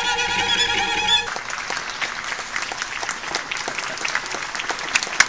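A small classical ensemble with cello and woodwinds holds a sustained chord that cuts off about a second in, followed by audience applause.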